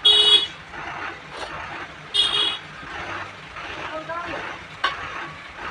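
Two short vehicle horn honks about two seconds apart, over background traffic noise and faint voices.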